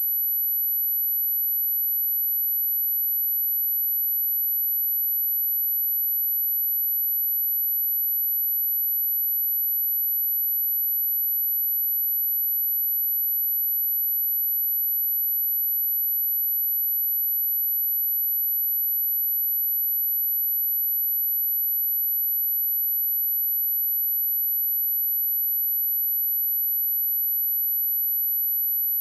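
A pure 11875 Hz sine-wave test tone: a single very high-pitched steady whistle, unchanging in pitch and level, used to test speakers and to shake water and dust out of a speaker.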